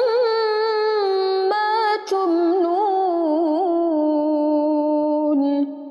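A woman's voice reciting the Quran in melodic murottal style in the bayyati maqam, drawing out long held notes with ornamented turns. There is a brief break about two seconds in, and the voice falls away near the end.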